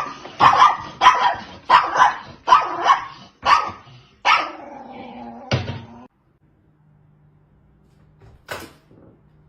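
An animal calling in a rapid series of short, sharp cries, about one and a half a second, ending in a longer drawn-out cry that stops about six seconds in. A single sharp click follows near the end over a faint low hum.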